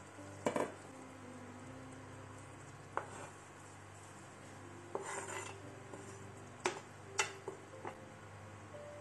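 Kitchen utensil clatter: a metal clunk about half a second in, then a knife scraping chopped parsley off a plastic cutting board into a stainless steel soup pot, with several sharp taps of the knife and board against the pot near the end.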